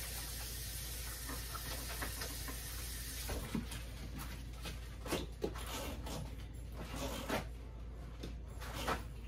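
Kitchen sink tap running while hands are washed, shut off about three seconds in, followed by scattered small knocks and the rustle of paper towels being pulled from a roll to dry the hands.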